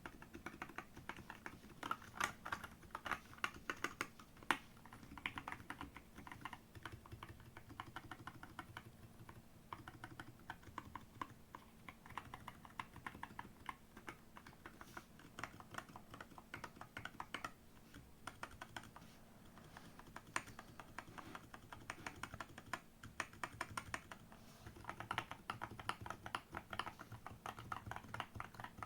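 Typing on a GK68 / SiCK-68 mechanical keyboard with JWK T1 black tactile switches and XVX keycaps: fast, continuous keystroke clacking in runs with brief lulls between.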